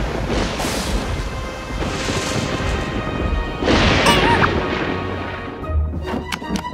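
Cartoon thunderstorm sound effect: rolling thunder with rain, rumbling and swelling several times, over background music. A brief wavering squeal comes about four seconds in, and light plucked notes start near the end.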